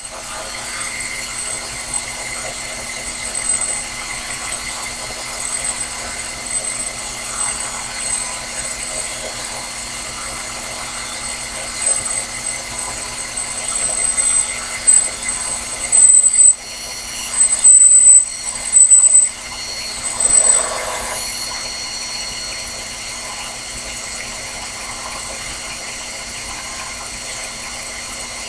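Sherline bench lathe running steadily with a thin, high motor whine. A few loud, harsh bursts of noise come a little past halfway, then it settles back to the steady running.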